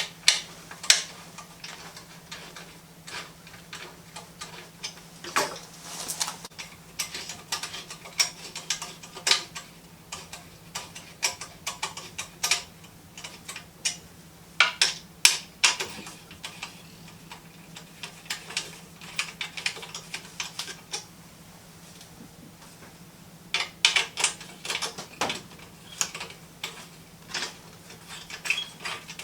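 Hand tools at work on metal parts: irregular sharp clicks and ratcheting, with clustered clicks about 15 and 24 seconds in, consistent with a socket ratchet tightening the bolts of a motorcycle side rack. A faint steady hum runs underneath.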